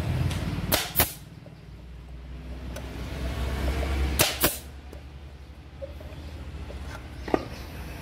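Pneumatic nail gun driving fasteners into the thin plywood of a wooden bird box: two quick shots about three-quarters of a second in, two more a little after four seconds, and a fainter one near the end.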